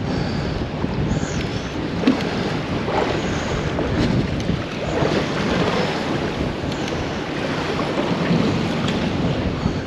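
Steady wind buffeting the microphone on an open boat, with water washing along the hull.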